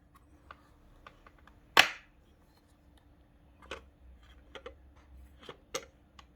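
Scattered light clicks and knocks of something being handled. There is one sharper knock about two seconds in, and a few smaller clicks in the second half.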